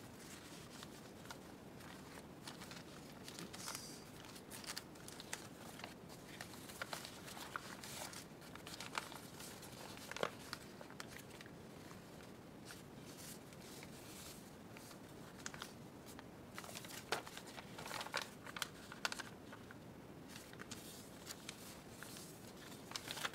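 Sheets of paper-bag and dyed paper rustling and crinkling as they are handled and laid on top of one another, with irregular soft crackles and clicks.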